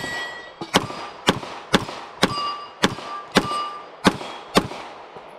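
Walther PDP Compact pistol fired in a steady string of about nine shots, roughly two a second, with steel plate targets ringing briefly after several of the hits.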